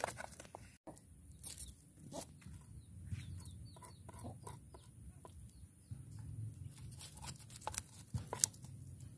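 A kitchen knife scraping scales off a small fish on a wooden plank in short, separate strokes, with chickens clucking in the background.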